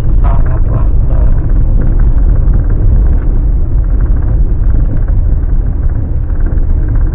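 Steady low rumble of a car driving along a road: engine and tyre noise at cruising speed.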